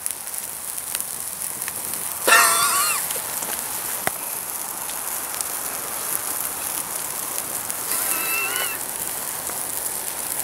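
Plastic toy train and its track burning after being doused with fuel: a steady crackling hiss with a few sharp pops. A brief high-pitched squeal rises over it about two seconds in, the loudest moment, and a fainter one near the end.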